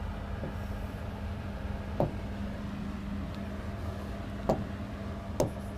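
Steady low electrical hum with three sharp taps of a pen on an interactive display board, about two, four and a half and five and a half seconds in.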